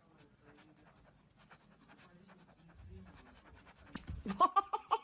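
Faint scratchy rustling and light clicks, then, as the cat lunges near the end, a person's voice in a quick run of short, rapid pulsed cries.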